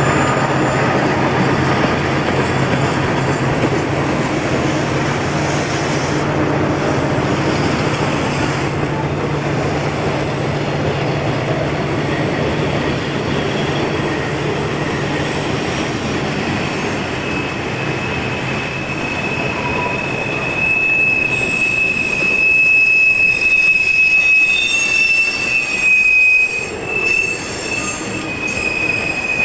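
Freight cars of a Santa Fe train rolling past with a steady rumble. About halfway through, a high, steady wheel squeal sets in and keeps on.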